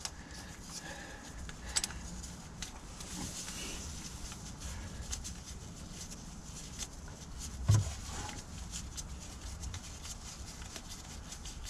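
Faint clicks and light rubbing of gloved hands threading bolts in finger tight on the timing chain gear of a 2.2 HDI diesel engine, over a steady low background hum, with a short vocal sound about eight seconds in.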